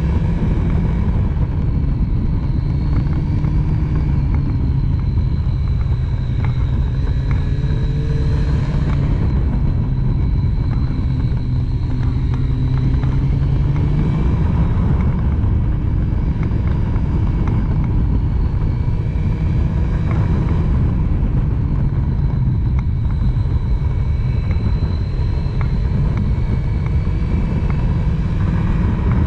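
Triumph Street Triple's three-cylinder engine running at speed, its note rising and falling, under heavy wind rush on the camera microphone.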